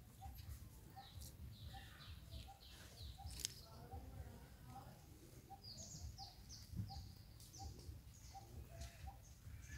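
Faint outdoor birdsong: one bird repeats a short, low note about twice a second while other birds chirp higher, with a couple of sharp clicks and a low rumble underneath.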